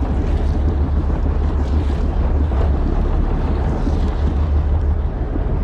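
Wind buffeting the microphone on a fishing boat at sea, a loud steady low rumble with a haze of wind and water noise.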